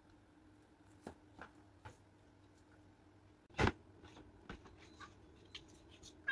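Quiet room with faint scattered taps and clicks and one louder knock about three and a half seconds in: small handling noises and flip-flop footsteps on a wooden floor.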